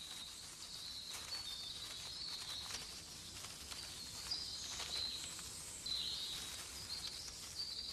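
Faint outdoor nature ambience: continuous high-pitched chirping that wavers slightly in pitch, with scattered light ticks.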